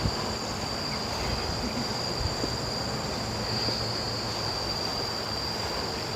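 Steady, high-pitched chorus of insects buzzing without a break, over a low rushing noise.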